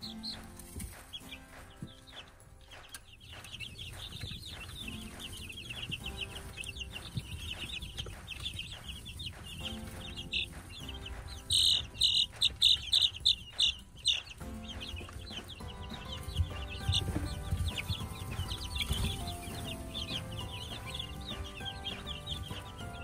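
A flock of two-week-old chicks peeping continuously, many high, short peeps overlapping, with a run of louder peeps a little past the middle.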